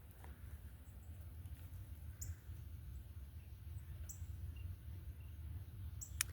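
A bird giving a short, high, down-slurred chirp about every two seconds, over a steady low rumble.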